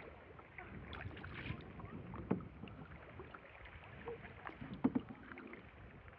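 Kayak paddle dipping into the river, with small splashes and drips, and two louder thuds, one about two seconds in and one near five seconds.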